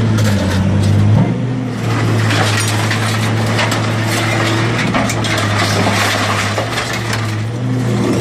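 Scrap-metal shear baler's drive running with a steady low hum, while from about two seconds in scrap metal crackles and creaks as the machine crushes it.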